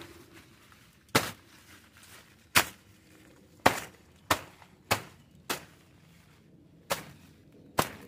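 A blade chopping into a pile of banana leaves and stalks: eight sharp strikes at irregular spacing, roughly one a second, with a longer gap in the second half.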